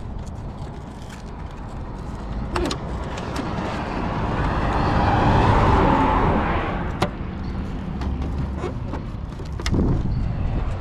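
A car passing on the road, its tyre and engine noise swelling to a peak about halfway through and fading away. A few sharp clicks come from the plastic of the RC car being handled.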